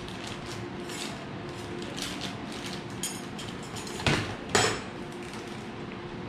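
Plastic zip-top bag crinkling as it is handled and pulled open, with metal utensils clinking inside it. Two sharp, louder clinks come about half a second apart, about four seconds in.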